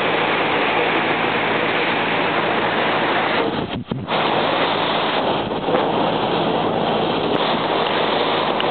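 Steady rush of wind on the microphone and water noise from a moving river boat, with a low engine hum underneath. The sound drops out briefly about four seconds in, where the picture cuts.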